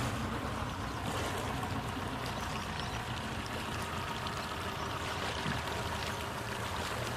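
Boat under way: its motor running steadily, with water rushing along the hull.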